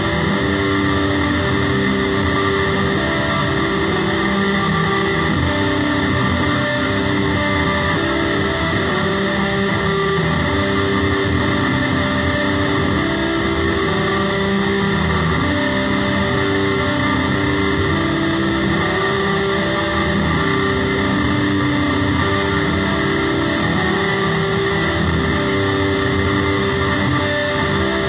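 Electric guitar, a 1984 Gibson The SG, played through an Altergear effects pedal: a dense wall of distorted, sustained notes and chords at an even, loud level, with the held pitches changing every second or so.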